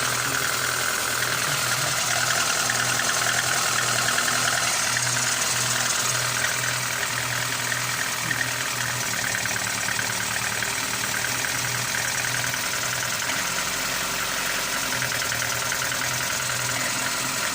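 Lada Granta 8-valve four-cylinder engine idling steadily with a knock in it. The camshaft end play and valve clearances have already been dealt with, and the owner suspects the piston skirts knocking.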